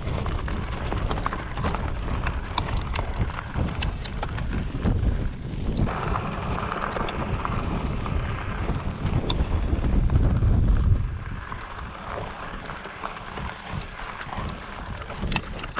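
Wind buffeting a GoPro microphone during a mountain bike ride, a heavy rumble that eases about two-thirds of the way through. Scattered clicks and crackles of the bike's fat 29x3.0 tyres rolling over gravel and rock sound through it.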